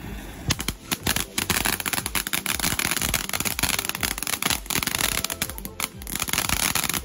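Ground fountain firework spraying sparks with a dense crackle of rapid pops over a hiss, starting about half a second in and easing briefly near the end.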